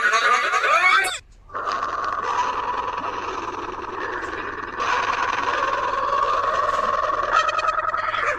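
A sneeze sound digitally multiplied and stacked into a dense, distorted mass: a wavering burst that cuts off about a second in, then a loud, steady drone that grows louder about halfway through.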